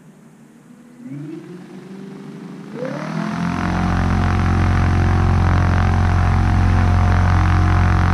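A radio-controlled model glider's electric motor and propeller spin up during a ground test of the electrics. A hum rises in pitch about a second in and holds, then steps up again just before three seconds. It then runs steadily at high power: a steady whine over a deep propeller drone.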